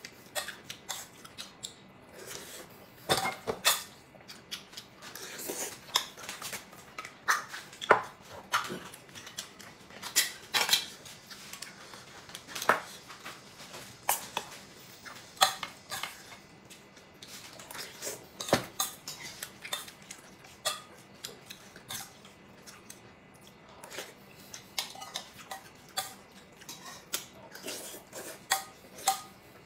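Metal spoon clinking and scraping against a metal bowl while eating, in irregular clinks, a few of them louder than the rest.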